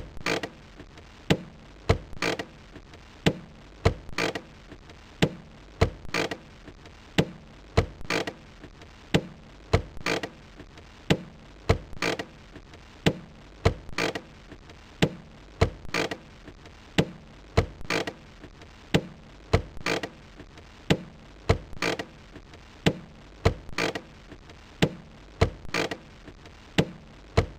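Car handbrake lever being worked over and over, each stroke a sharp ratcheting click, repeating a little faster than once a second.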